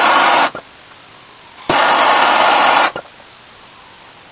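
Handheld propane torch fired in two bursts, each a steady hiss about a second long that starts with a click and cuts off sharply, heating coat-hanger wire clamped in a vise.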